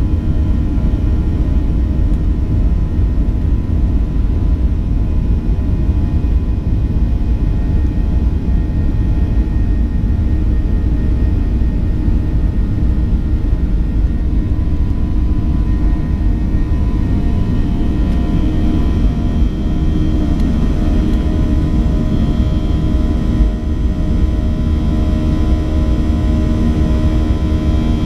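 Boeing 737-800's CFM56-7B jet engines at takeoff thrust, heard from inside the cabin: a loud, steady rumble with a layer of steady whining tones through the takeoff roll. The whining tones grow stronger in the second half as the airliner lifts off and climbs.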